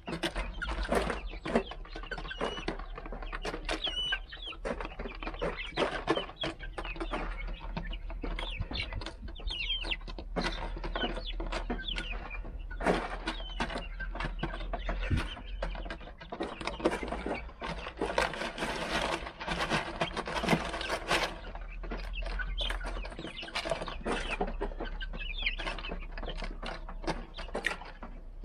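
A flock of young Rhode Island Red chickens clucking and peeping while they feed, with many short taps from their beaks pecking at the feeder and the ground. A denser, noisier stretch of scratching and shuffling comes about two-thirds through.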